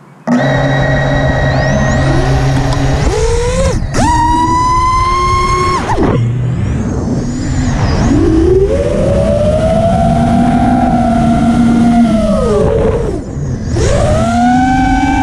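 FPV racing quadcopter's brushless motors and propellers, heard up close from the onboard camera, spinning up suddenly just after the start and then whining with every throttle change. The pitch climbs steeply about three to four seconds in, drops around six seconds, swells in a long arc, dips briefly near the end and climbs again.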